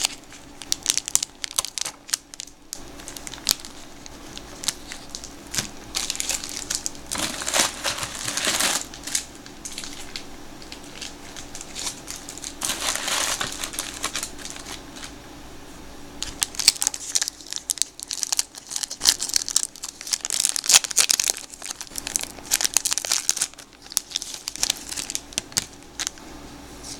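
A baseball card wax pack's paper wrapper crinkling and tearing in the hands as the pack is opened. It comes in irregular bursts of rustling full of small crackles, busiest around six to nine seconds in and again from about seventeen to twenty-three seconds.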